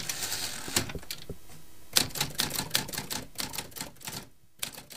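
Typing sound effect: a run of rapid, sharp key clicks, densest in the middle and thinning out near the end.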